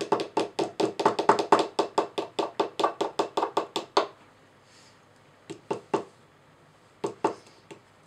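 Small hammers tapping on a chalky plaster dig block and its chisel, a fast, even run of sharp knocks at about six a second that stops about four seconds in, then a few scattered taps.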